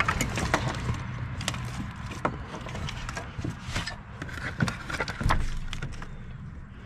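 Scattered clicks, knocks and rattles of hands working deep in a 6.0 Powerstroke diesel's engine bay, pulling at the plastic wiring connector of the ICP sensor behind the turbo.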